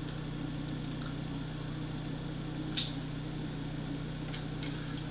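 Steady low electrical hum, with one short sharp click just under three seconds in and a few faint ticks.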